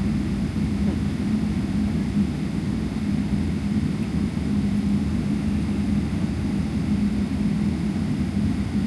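Steady cabin noise inside a Boeing 777-300ER: the low rumble of its GE90 jet engines and airflow, with a constant hum.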